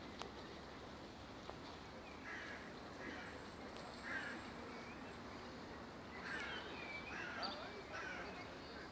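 Crows cawing: a series of short harsh calls, a few spaced out early and then a quicker run of them in the last three seconds, over faint outdoor background noise.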